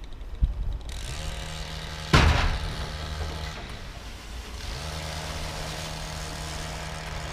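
A motor hums steadily in two long stretches, stopping for about a second in the middle, with one sharp knock about two seconds in.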